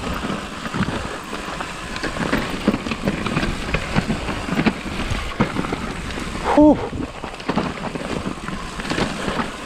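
Mountain bike descending a steep, slick dirt trail: tyres skidding and rolling over mud and roots, with the rear wheel largely locked under braking, under constant rattling and knocks from the bike. A brief loud squeal about six and a half seconds in.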